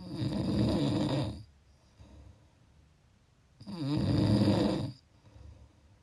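A person snoring: two snores, each lasting a little over a second and about three and a half seconds apart, with faint breathing between them.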